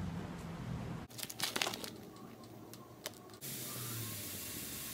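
Crinkling and tearing of a plastic instant-noodle packet, in a quick cluster of crackles about a second in. From about three and a half seconds in comes the steady hiss of noodles boiling in a pot of water.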